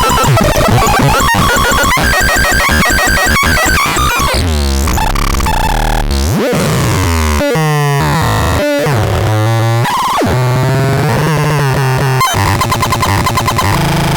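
Harsh, cluttered synthesizer sounds. A rapid clicking pattern over buzzing tones comes first, then sweeping pitch glides from about four seconds in, and a denser steady buzz from about twelve seconds in.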